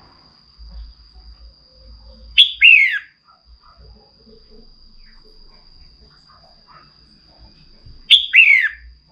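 Red-whiskered bulbul calling twice, about six seconds apart: each a short, loud phrase of two or three quick clear notes that fall in pitch. A faint steady high thin tone runs underneath.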